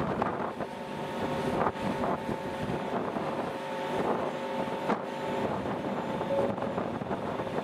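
Wind buffeting the microphone over a steady multi-tone hum of ship's engines and machinery, heard from high on a ferry's deck; the hum sets in just after the start and fades near the end.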